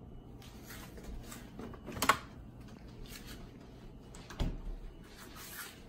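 Handling noises at an open refrigerator as a squeeze bottle of mustard is taken out: light rustles and clatter, one sharp knock about two seconds in and a duller thud a couple of seconds later.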